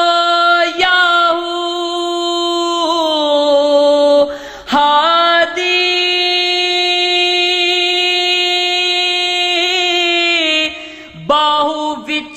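A man singing Punjabi Sufi kalam unaccompanied, drawing out long held vowel notes with slow ornamental turns in pitch. He breaks off briefly for breath twice, once partway through and once near the end.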